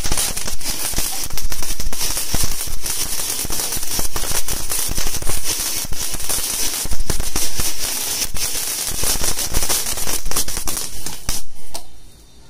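Minions fountain firework, a long-burning flower-pot type, spraying sparks: a loud steady hiss thick with crackling pops. It dies away abruptly near the end.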